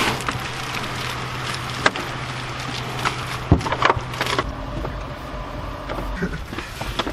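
Large cardboard couch box being shoved and scraped into a car, with several knocks as it bumps against the car's interior. A steady low hum underneath stops about four and a half seconds in.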